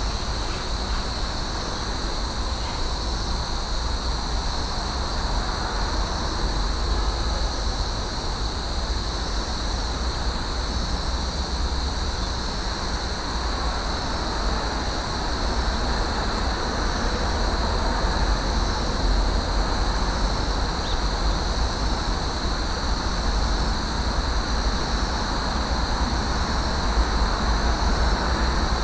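Steady outdoor background noise: a low rumble under an even hiss, with a constant high-pitched hum.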